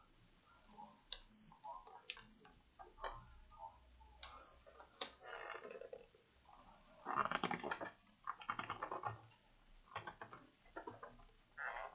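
Light plastic clicks and taps from the keyboard and case of an opened HP Pavilion dv6 laptop as hands press and shift the keyboard, with a longer stretch of rattling and scraping about seven seconds in.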